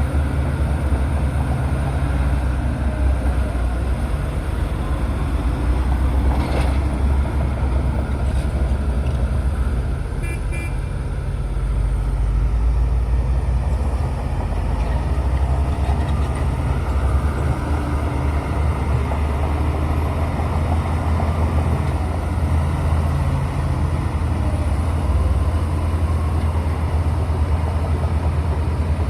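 Bulldozer's diesel engine running steadily under load with a deep rumble, with a few short high beeps about ten seconds in.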